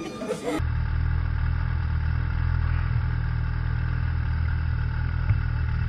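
Snowmobile engine idling steadily. It comes in abruptly, less than a second in, after a moment of voices.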